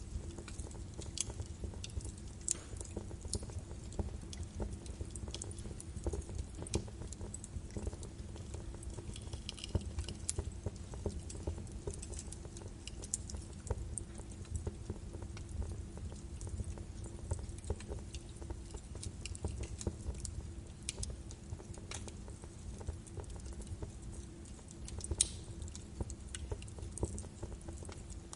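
Birch wood fire burning in a fireplace, crackling with many irregular sharp pops over a low steady rumble of the flames. One pop about 25 seconds in stands out as the loudest.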